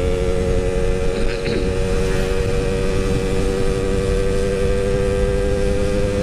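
Yamaha RX-King 135 two-stroke single-cylinder motorcycle running at a steady, even pace under way. Its exhaust note is a bit dry.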